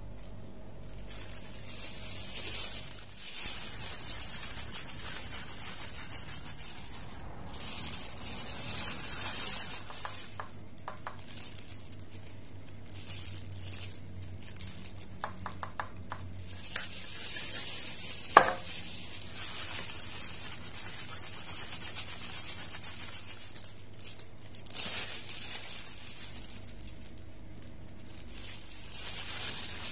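Wooden craft stick stirring and scraping epoxy resin in paper and plastic cups, in repeated hissy passages over a steady low hum, with one sharp click about two-thirds of the way through.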